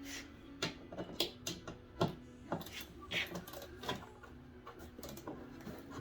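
Irregular clicks and clacks of small metal parts being handled and fitted by hand: the retaining clips and bolts of a heater core going back into its heater box.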